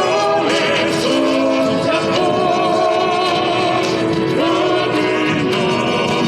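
Live singing over backing music: voices holding long notes with vibrato, changing pitch every second or so.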